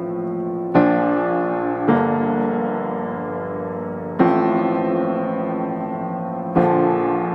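Background piano music: slow chords, a new one struck four times and each left to ring.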